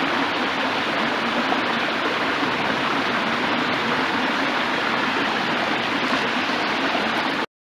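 Running stream: a steady rush of flowing water that cuts off suddenly near the end.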